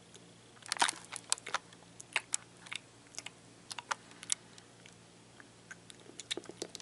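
Lip smacks and mouth clicks right against the camera's microphone: a run of sharp, irregular clicks, thickest from about half a second to four and a half seconds in, with a few more near the end.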